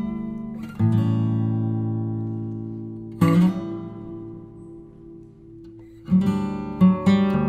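Background music: acoustic guitar strumming. Single chords ring out and fade about a second in and about three seconds in, then quicker rhythmic strumming starts near the end.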